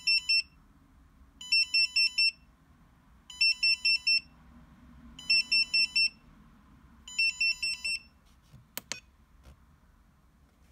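Spektrum S2200 smart charger sounding its error alarm: groups of four quick high-pitched beeps, repeating about every two seconds. It signals the self-test failure 'Battery Present' (error 211) on channel 1, because a battery is still connected. The beeping stops about three-quarters of the way through, followed by two sharp clicks.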